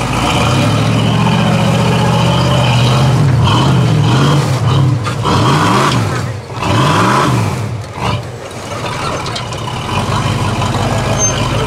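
Engine of a Jeep-bodied 4x4 trial buggy working under load on a rock climb, held at steady revs at first, then revved up and down several times in quick succession about halfway through before settling back to steady revs near the end.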